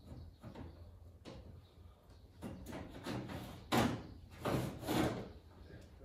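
Knocks and scrapes of things being handled. There are light clicks at first, then three louder scrapes or knocks about four to five seconds in.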